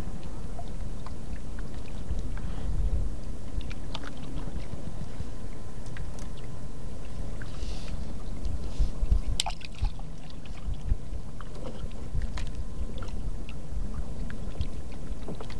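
Steady low rumble aboard a small fishing boat, with scattered light clicks and taps as the fishing line and baited hook are handled.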